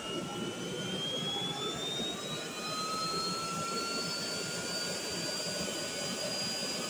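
Homemade propane-fuelled turbojet engine running under a steady rush of exhaust, its high whine rising in pitch over the first few seconds as the fuel flow is throttled up, then holding steady at the higher speed.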